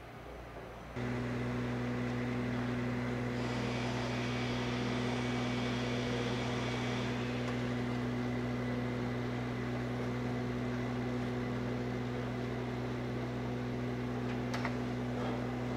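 Machinery running at a constant speed with a steady, even hum that cuts in abruptly about a second in. A hiss rises over it for a few seconds in the middle, and a few sharp clicks come near the end.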